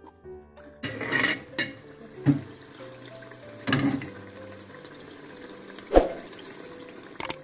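Background music over the clatter and scrape of an aluminium pressure-cooker lid and the bubbling of sardines simmering in oil and tomato sauce, with a sharp knock about six seconds in.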